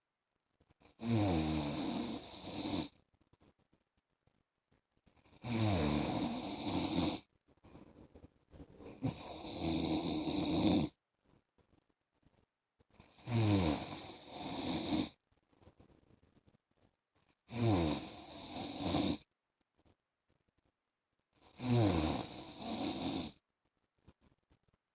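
A man snoring in his sleep: six loud snores about every four seconds, each opening with a pitch that drops, with near silence between them.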